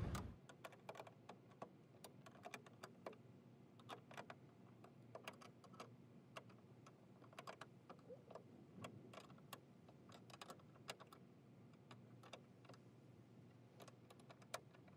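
Faint, irregular small clicks and taps from hands working at a car's hood hinge, over near silence.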